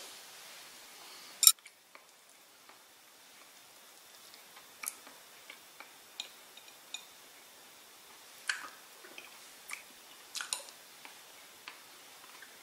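Scattered light clicks and taps of an eating utensil against a dish, with one sharper click about a second and a half in.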